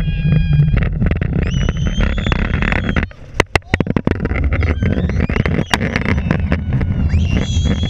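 Roller coaster train rumbling and rattling along the track at speed, with wind on the microphone, sharp clicks and knocks, and two long high-pitched squeals, one about a second in and another near the end.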